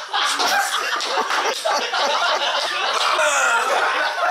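Several people laughing and shouting at once, loud and without a break.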